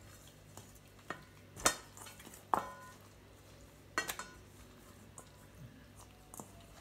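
Hands rubbing seasoning into a pork chop in a stainless steel mixing bowl: a few scattered knocks and scrapes against the bowl, one of them leaving the metal briefly ringing.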